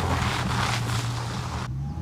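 Vehicle sound with a loud rushing, wind-like noise that cuts off suddenly near the end, over a steady low hum.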